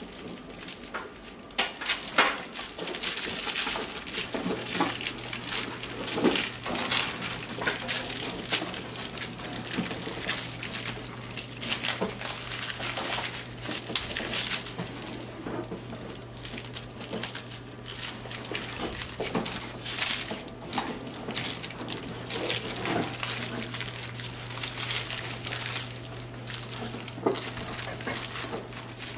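Boxer puppies scuffling over a toy on a tile floor: a busy run of claw clicks, scratches and chewing scuffs. A steady low hum starts about four seconds in.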